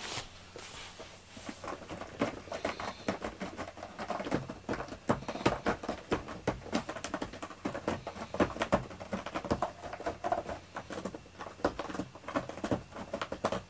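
A cat scratching and pawing at bedding and toys: an irregular stream of scratchy clicks and rustles, busier from about four seconds in.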